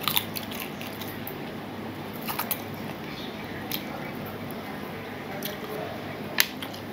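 Eating rice and dal by hand: wet chewing and lip-smacking, with a few short sharp clicks of fingers on a steel plate, the loudest a little before the end. A steady low hum runs underneath.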